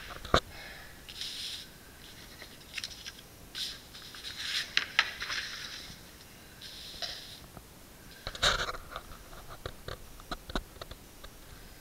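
Scattered sharp clicks and knocks with short scraping and rustling noises in between; the loudest knocks come just after the start and about eight seconds in.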